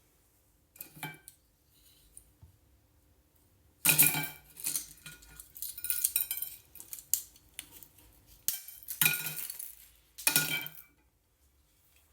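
A plastic fidget snake toy clattering and rattling inside a blender jar in several bursts of hard clinking, the longest and loudest beginning about four seconds in.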